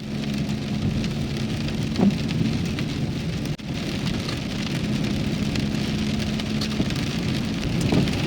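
Rain and wet-road noise from a Renault Kangoo driving in the rain, over a steady low engine hum.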